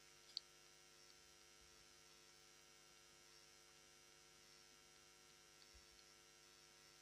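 Near silence: a faint, steady electrical mains hum, with one short click about half a second in.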